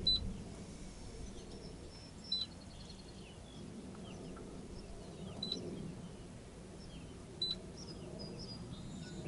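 Short high electronic beeps from a chartplotter's touchscreen or keys as the chart is zoomed and moved, three times a few seconds apart, over a faint steady hum.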